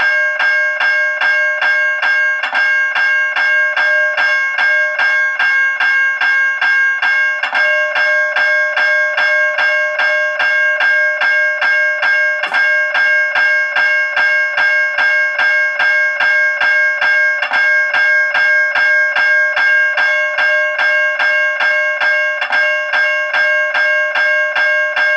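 General Electric Smart electronic crossing bell ringing loudly, striking the same bright, multi-toned ding over and over in an even rhythm. About every five seconds there is a small hitch in the rhythm, which fits the bell occasionally skipping a stroke; the owner puts the skips down to a misplaced wire.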